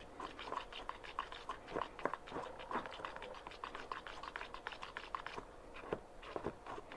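Irregular soft clicks and scrapes of a stirrer against a cut-down plastic water bottle, stirring copper carbonate powder into phosphoric acid.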